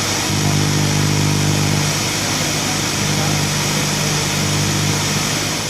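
Milling machine running steadily: a constant low motor hum under a broad hiss of cutting and machine noise, easing down near the end.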